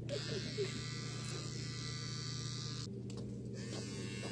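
Electric hair trimmer buzzing steadily as it trims a man's beard. Its high whine drops away for a moment about three seconds in.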